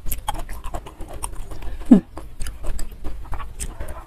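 Close-miked eating by hand: small wet clicks and ticks of chewing and of fingers picking at fried salted fish and rice. About halfway through comes one short, louder low sound that drops in pitch.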